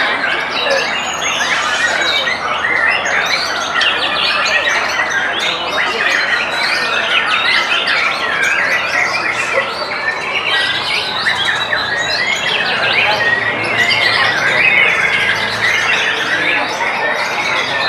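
White-rumped shamas and other caged songbirds singing all at once: a dense, unbroken chorus of overlapping whistles, chirps and trills.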